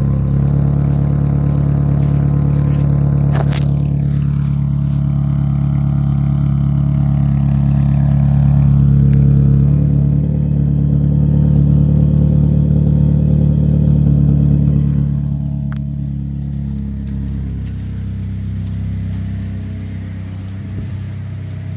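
2019 Toyota Corolla SE's four-cylinder engine running with its muffler deleted, the exhaust loud and held at steady raised revs, then dropping back to a lower idle about sixteen seconds in.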